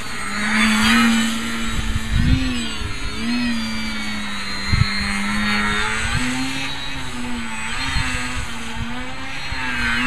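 Electric RC plane's Turnigy 3542 1250Kv brushless outrunner motor spinning an APC 12x6 propeller in flight, a steady buzzing whine whose pitch wavers up and down. Low thumps of wind gusts hit the microphone now and then.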